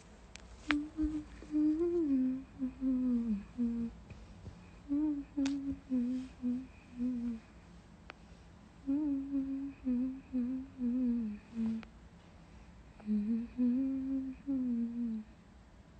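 A woman humming a tune in four short phrases, each a couple of seconds long, with pauses between.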